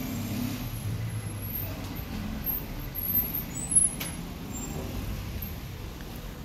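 Low rumbling background noise, with a single sharp click about four seconds in.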